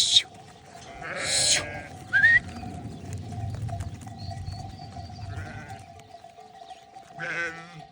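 Merino sheep bleating in a flock: a loud call about a second in, a fainter one past the middle and another near the end.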